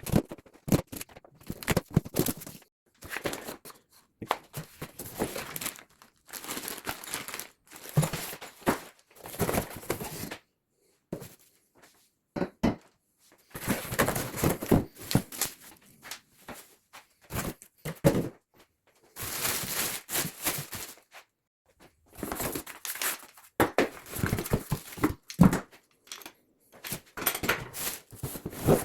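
A pressure washer's cardboard shipping box being opened and its packing pulled out and handled: irregular spells of rustling and tearing with knocks, broken by short pauses.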